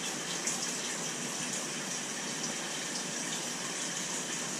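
Steady rush of water pouring and churning into a large aquarium tank, an even hiss with no breaks.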